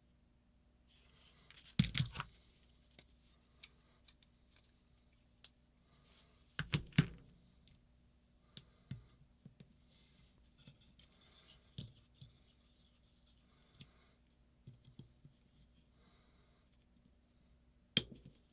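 Small hand tools clicking and scraping against a paintball marker's metal body as a stuck finger-detent remnant is worked out, with a few louder knocks about two seconds in, around seven seconds in and near the end.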